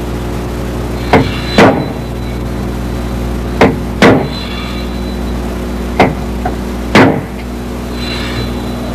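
Sharp knocks like hammer blows, three pairs of them a half second to a second apart, over a steady low hum.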